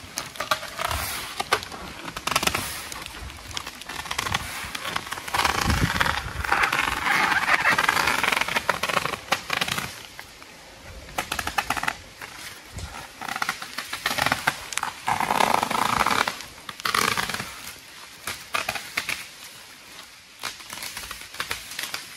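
Heavy plastic sheeting crackling and rustling as it is pulled and handled, in uneven bursts, loudest from about five to ten seconds in and again around fifteen seconds.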